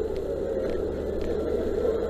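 Fire engine's engine and pump running steadily, a constant low rumble with a few faint clicks over it.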